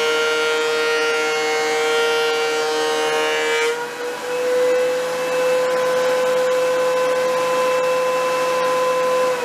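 DeWalt benchtop thickness planer running with a loud, steady high-pitched whine while a board passes through. A little under four seconds in, the upper part of the whine drops away as the cut finishes, and the machine runs on empty at a steady pitch.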